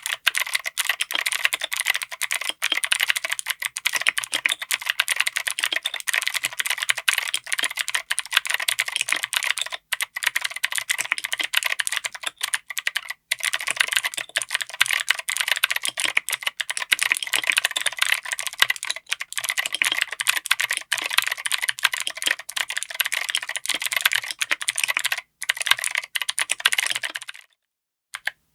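Fast, continuous typing on a mechanical keyboard with Outemu Cream Blue clicky click-jacket switches, mounted on an FR4 plate in an aluminum case. It makes a dense stream of crisp clicks with a few brief pauses and stops about a second before the end.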